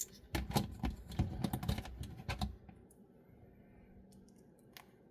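Quick run of small plastic clicks and taps from a toy robot figure's parts being handled and snapped into place. They stop a little past halfway, with one more click near the end.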